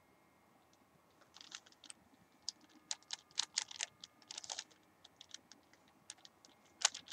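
A 3x3 Rubik's cube being turned by hand, its plastic layers clicking in quick, irregular clusters of turns that start about a second in.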